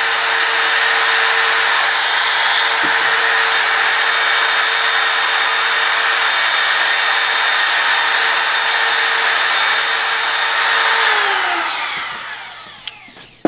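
Laminate trimmer with a straight bit running at high speed, routing the waste out of a hinge mortise in a wooden workpiece. About eleven seconds in it is switched off, and its whine falls in pitch as the motor spins down.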